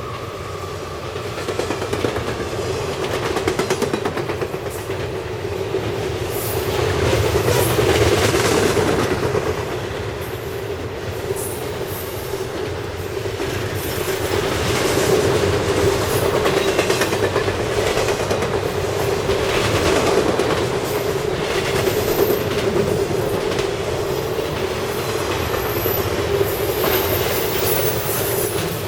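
CSX intermodal freight train rolling past: a continuous rumble of cars with wheels clicking over rail joints, and short high-pitched wheel squeals in the last few seconds.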